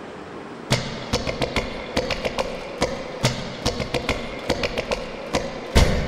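Performance music: a quiet start, then a run of sharp percussive hits over a held tone, with heavy drums coming in near the end.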